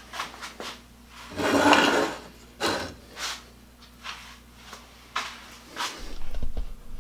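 Handling noises at a workbench: a longer scrape about a second and a half in, a few short knocks of wood and tools being moved, then low rumbling bumps near the end.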